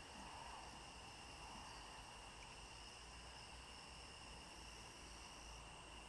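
Faint, steady high-pitched song of crickets, with one of several insect voices stopping a little before the end, over a quiet open-air background.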